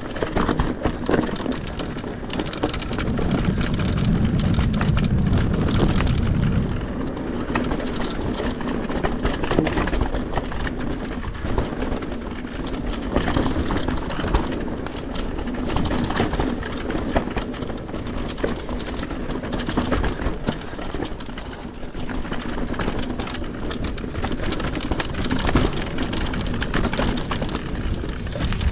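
Mountain bike rolling downhill over a rocky dirt trail: tyres crunching over gravel and stones amid a constant rattle and clatter of small knocks from the bike, with a heavier low rumble from about three to seven seconds in.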